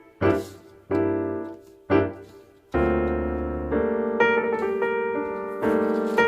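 Background piano music: a few separate struck chords, then chords held and restruck.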